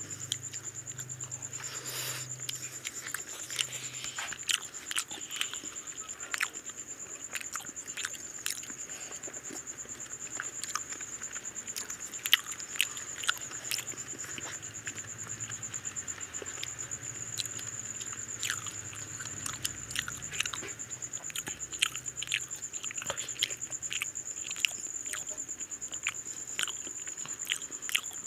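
People eating rice and mutton curry with their hands: irregular wet clicks and smacks of chewing and of fingers working through the rice. Behind it runs a steady high-pitched whine and a faint low hum.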